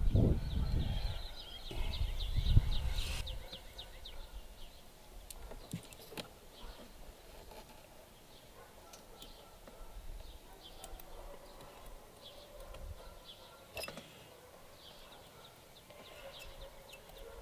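Handling noise from hands working inside an RC boat hull: two low thumps in the first three seconds, then faint scattered clicks and small rattles as fingers feel around for a dropped washer, with one sharper click about two-thirds of the way through.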